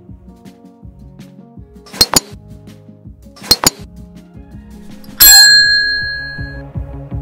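Two quick double mouse-click sound effects, then a loud bright bell ding that rings out and fades over about a second and a half, over quiet background music. This is the click-and-ding effect of a like, subscribe and notification-bell animation.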